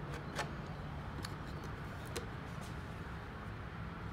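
Steady low background hum with a few faint sharp clicks, about a second apart, from a wooden stick tapping and scraping as it packs epoxy into the edges of a hatch opening in a fiberglass wing.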